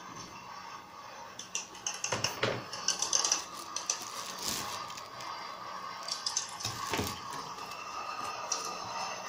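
Packaging being handled by hand: irregular rustles, crinkles and light knocks from a cardboard box, a plastic bag around a coiled cable and a paper leaflet, busiest a couple of seconds in and again about seven seconds in, over a faint steady hum.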